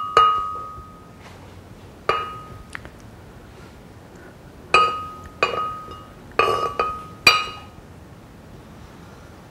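A plate and spatula clinking against a glass blender jar as ripe avocado is scraped in: about eight sharp, ringing clinks, most of them bunched together past the middle.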